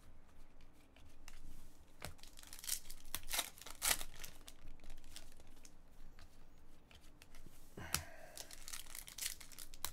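Foil trading-card pack wrapper crinkling and tearing as a pack is opened and the cards are handled, in irregular short rustles and clicks.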